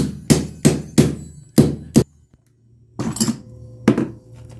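Sharp knocks of a hand tool striking the cell connectors inside an opened lead-acid car battery to break two cells apart. Six quick knocks in the first two seconds, a short pause, then a few more knocks later on.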